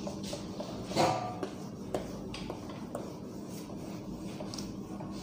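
Cloth wiping a whiteboard clean: soft rubbing strokes, with a brief louder pitched sound about a second in.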